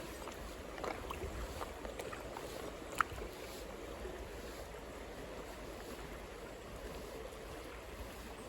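Mountain stream water rushing steadily, with a few light clicks early on and one sharp click about three seconds in.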